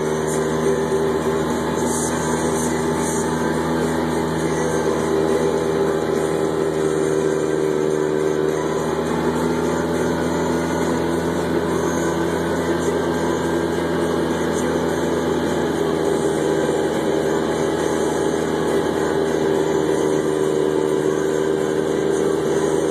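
Polaris RZR side-by-side's engine running at a steady cruising speed while driving, the tone holding an even pitch, with a rougher, noisier stretch partway through.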